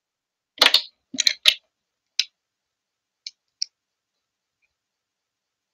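Sharp clicks and knocks of small hard objects, such as pens, being handled and set down on a glass desktop: a quick cluster in the first second and a half, one more just after two seconds, then two light ticks about three and a half seconds in.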